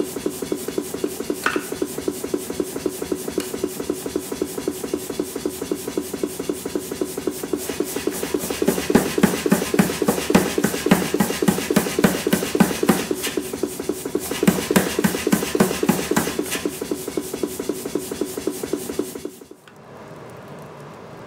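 Power hammer striking a glowing EN9 steel hammer-head blank held in tongs, a fast, even run of several blows a second. Near the end the blows stop and a quieter steady hiss of the coal forge fire takes over.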